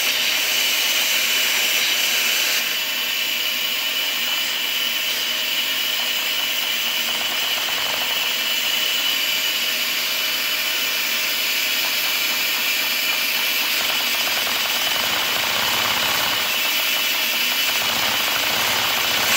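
Shop vacuum running steadily with a high whine, its suction drawing air through a Lego vacuum engine; the sound dips slightly about three seconds in.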